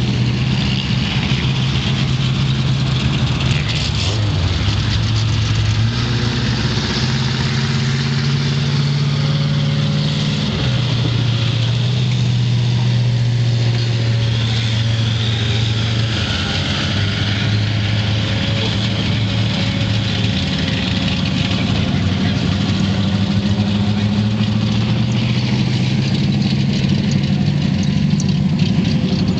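Rear-wheel-drive bomber-class stock car engines running on a dirt oval. The engine note steps up and down every few seconds as the cars accelerate and lift off.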